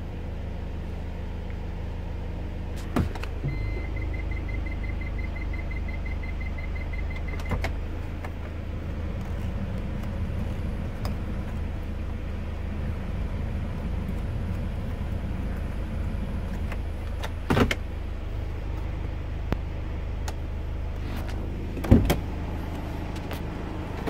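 The 2.5-litre turbo-diesel engine of a 2015 Hyundai H-1 Starex idling steadily, heard from inside the cab. A rapid electronic chime beeps for about four seconds a few seconds in. There are several sharp clicks and knocks from the controls and doors, the loudest near the end, and a rushing from the ventilation fan in the middle.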